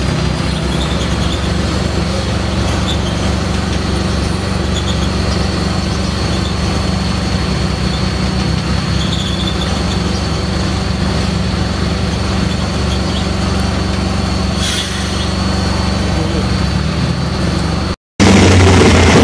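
Large stationary multi-cylinder engine running steadily: a low, even drone with rapid, regular firing pulses. Near the end it cuts off in a short gap and a louder engine, a roughly 2500 hp drag-car engine, takes over.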